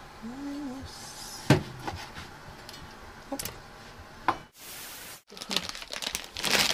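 A few scattered knocks and clicks of kitchen utensils and dishes being handled, with a short murmur of a voice about half a second in.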